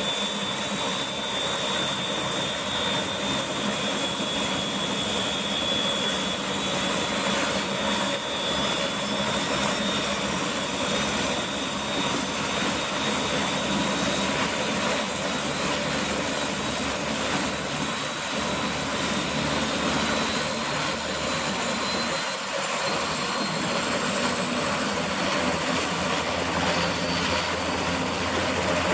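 Sikorsky S-58DT helicopter's coupled Pratt & Whitney PT6T turboshaft engines running during start-up as the main rotor spins up: a steady turbine whine with a second whine slowly rising in pitch.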